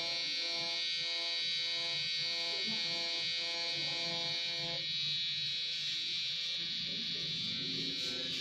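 Permanent-makeup tattoo pen running with a steady high-pitched buzz as it draws eyeliner strokes on practice skin. Fainter lower tones under it stop about halfway through.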